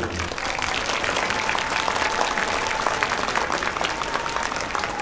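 Audience applauding, a dense steady patter of many hands clapping. The last low note of the music stops just as it begins.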